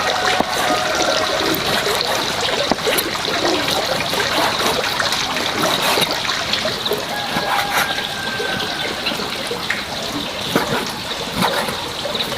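Water trickling and splashing, with small clicks and knocks throughout. A rooster crows faintly about seven seconds in.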